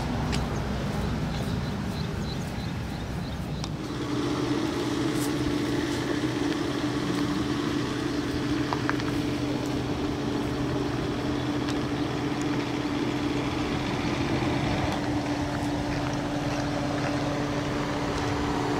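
An engine running steadily at one constant pitch, coming in about four seconds in and holding unchanged, over outdoor wind noise.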